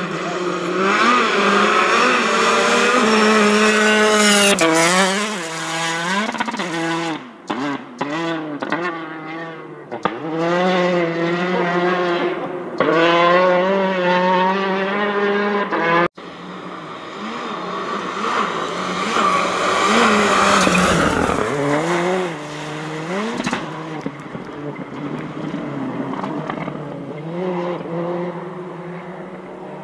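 Rally car engines at full throttle, revving up and down through rapid gear changes, with a few sharp cracks where the throttle lifts. After a cut about sixteen seconds in, another car passes close with a rush of noise at its loudest, then its engine fades away.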